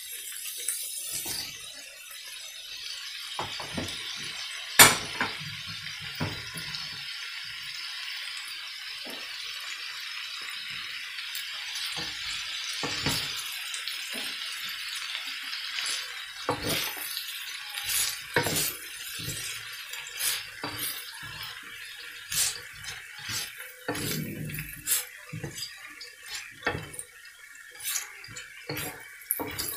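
Vegetables stir-frying in a wok: a steady sizzle, with a wooden spatula scraping and knocking against the pan. There is one sharp knock about five seconds in, and the knocks come more often in the second half.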